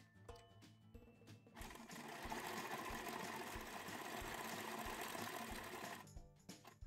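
Electric domestic sewing machine stitching a seam through knit sock fabric, running steadily for about four seconds from about a second and a half in, with light background music of plucked notes under it.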